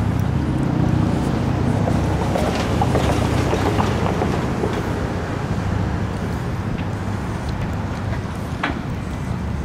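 A steady low engine drone that eases off a little in the second half, with a few faint clicks scattered through it and one short sharp sound near the end.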